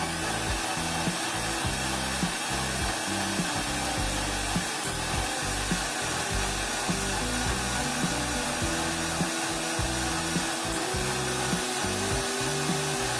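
Prestige electric mixer grinder running at speed, grinding chunks of ripe mango with sugar into a purée with no water added: a steady motor whir with the churn of the blades in the steel jar, cutting off sharply at the end.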